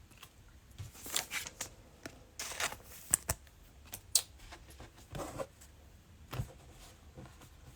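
Hands handling trading cards and cello-pack plastic wrap: scattered short, crisp rustles and clicks.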